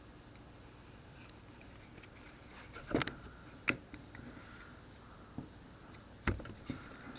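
A few sharp clicks and taps from small plastic and metal phone parts being handled and set down during a phone teardown. The first couple of seconds are quiet, then come scattered knocks, about six in all.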